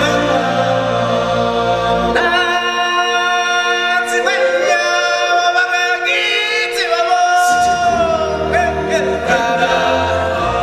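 Choir singing with music from a live stage show, the voices holding long notes. The low accompaniment drops out about two seconds in and comes back after about seven seconds.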